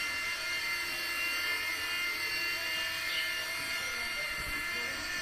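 E-flite Blade mSR micro RC helicopter in flight: a steady, high-pitched whine from its small electric motors and spinning rotor blades.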